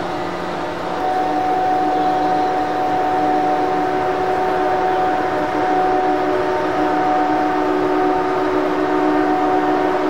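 Steady machinery hum with several held tones from an EF63 electric locomotive standing at the platform. It gets a little louder about a second in.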